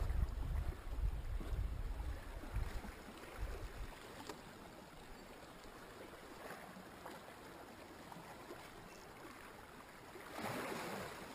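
Gentle sea water washing and lapping against shoreline rocks, with a louder wash about ten seconds in. A low rumble runs under the first few seconds.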